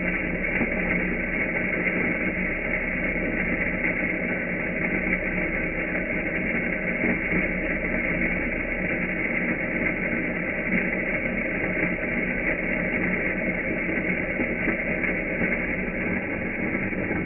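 Coffee grinder grinding beans, a steady unbroken sound with an even hum under it.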